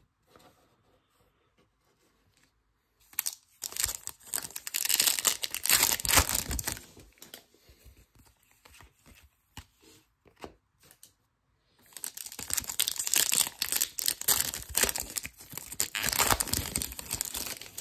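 Foil wrapper of a Topps Chrome baseball card pack being torn open and crinkled, in two stretches of a few seconds each, about three seconds in and again from about twelve seconds. Between them come a few light clicks of cards being handled.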